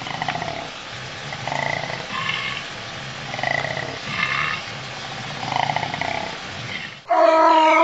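Koala bellowing: a low, rhythmic pulsing series, then a sudden, much louder sustained tonal call about seven seconds in.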